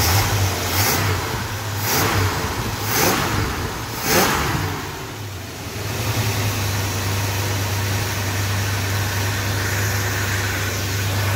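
Freshly rebuilt Chrysler 440 big-block V8 running, with four short surges in the first four seconds before it settles into a steady hum.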